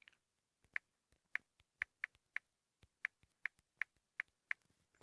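Key-press click sounds of a smartphone's on-screen keyboard as a word is typed: about ten short, sharp clicks at an uneven typing pace.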